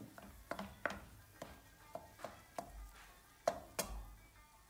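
Wooden spatula knocking and scraping against a ceramic-coated frying pan as minced meat and onions are stirred, in irregular taps about every half second.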